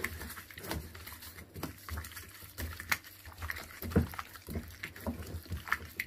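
Gloved hands mixing raw chicken wings in a wet egg, lemon and spice marinade in a glass bowl: irregular wet squelches and soft knocks, with one louder thud about four seconds in.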